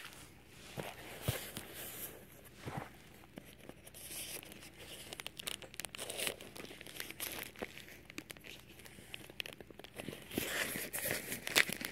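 Plastic packaging being handled and pulled off by hand: intermittent crinkling and tearing rustles with small clicks and taps.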